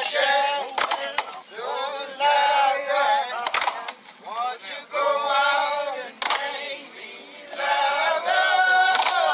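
Music: a group of men singing an unaccompanied work song in long phrases, with sharp knocks falling between the phrases.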